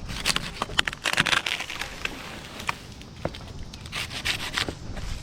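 Repeated crunching and cracking with sharp knocks, clustered about a second in and again near four seconds in: wood and brush debris being handled and crushed.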